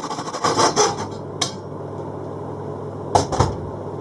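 A hacksaw and a freshly cut metal rail being handled: a burst of scraping and rattling in the first second, a single click, then two sharp knocks about three seconds in.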